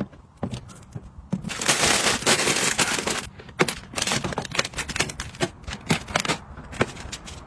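Household items being handled and set down: a series of light knocks and clicks, with a dense, hissy rustling burst lasting about a second and a half near the start.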